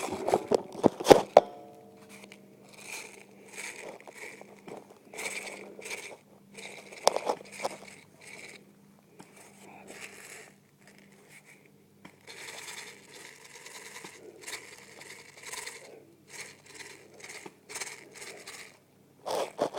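Rustling and crunching of someone moving through dry leaves and brush, in short irregular bursts. A few sharp clicks come in the first second or so.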